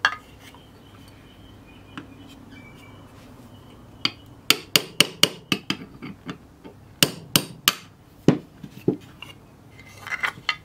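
Hammer tapping a pin punch to knock the printed support plugs out of the screw holes in a 3D-printed plastic bracket. Sharp taps come in bursts: one at the start, a quick run a few seconds in, then three louder ones and a couple more.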